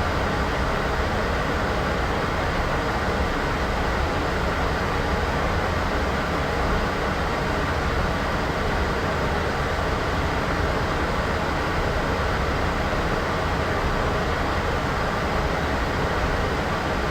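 Steady, unchanging white noise: a constant hiss with a low rumble underneath and no events or changes.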